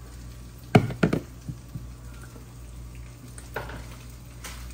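Kitchen clatter as eggs and vanilla go into a bowl of torn bread: two sharp knocks about a second in, then a few faint clicks and a soft rustle, over a steady low hum.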